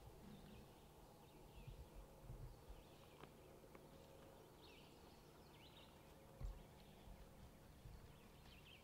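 Near silence outdoors, with faint, scattered bird chirps and a few soft low thumps, the clearest thump about six and a half seconds in.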